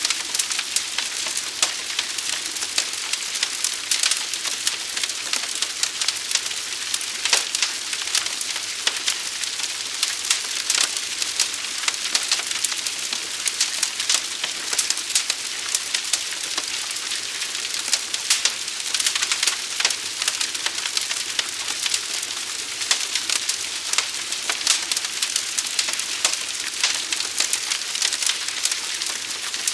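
Fire crackling: a dense, irregular run of sharp pops and snaps over a steady hiss.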